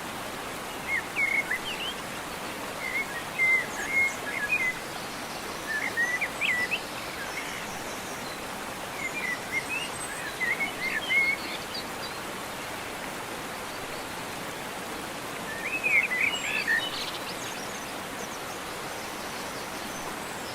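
A songbird singing short phrases about every few seconds, over a steady background hiss of outdoor noise.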